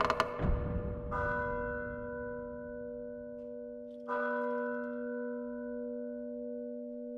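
A bell struck twice, about three seconds apart, each stroke ringing on with a slow fade, after a loud burst of noise that ends within the first half second.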